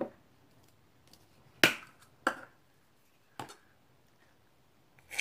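Handling of a shaving cream can: five short, sharp clicks and knocks, the loudest about one and a half seconds in with a brief hiss after it.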